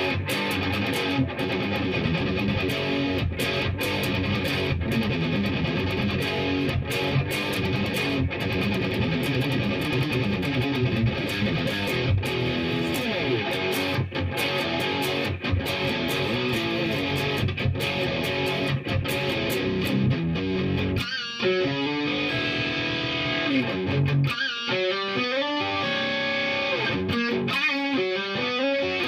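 Fernandes BX70 Explorer-style electric guitar played through an amplifier: busy picked riffs, then about twenty-one seconds in, slower held notes that waver in pitch.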